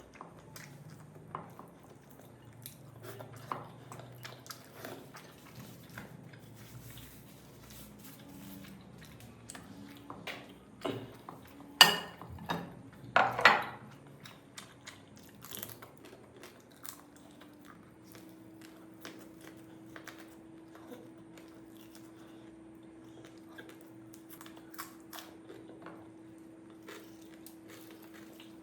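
A person chewing and biting into food with rice and curry, making wet smacking and small crunching clicks. There are two loud sharp sounds near the middle. A faint steady hum comes in about two-thirds of the way through.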